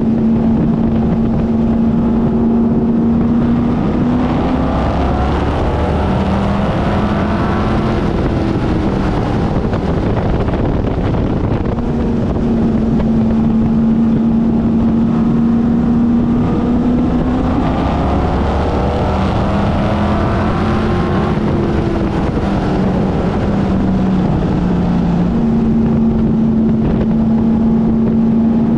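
Race car engine heard onboard, running at steady high revs. It eases off and builds back up twice, roughly every 13 seconds, as the car lifts for the turns and accelerates out again lap after lap.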